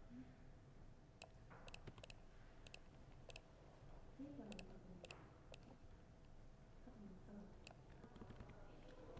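Laptop keyboard typing: soft, irregular key clicks. Faint voices murmur in the background.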